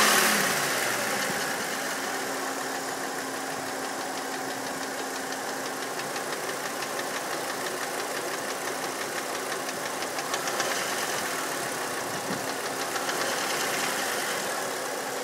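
Volkswagen Passat VR5 2.3-litre five-cylinder engine settling to idle just after a rev, then idling steadily with a fast, light ticking. This is the noise the owner is asking about, and it is not yet identified.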